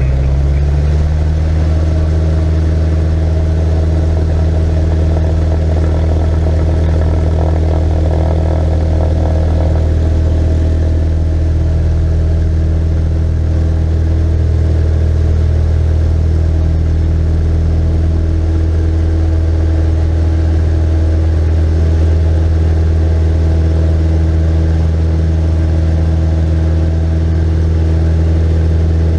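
Cessna 172's piston engine and propeller heard from inside the cockpit, throttled up about half a second in, then running steadily at high power through the takeoff roll.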